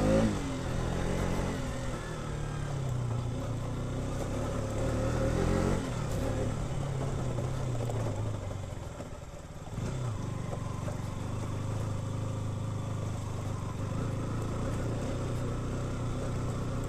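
KTM RC 200's single-cylinder engine running at low revs while riding, its pitch rising and falling with the throttle. It eases off briefly about nine seconds in, then picks up again.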